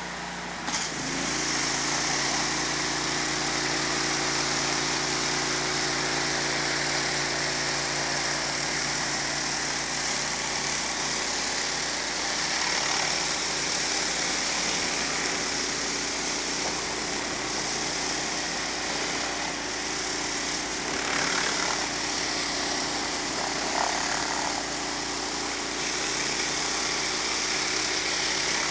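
Pressure-washer surface cleaner spraying high-pressure water onto concrete, a steady loud hiss from the jets under its housing over the constant drone of the pressure washer's engine. The spray starts about a second in, when the hiss jumps up and the engine note changes under load.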